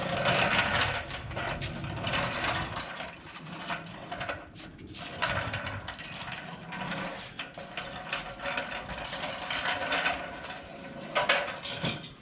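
Rapid metallic ratcheting clicks in repeated runs from a ratchet-and-pawl mechanism in use on the car, with a short lull about four and a half seconds in and a louder burst near the end.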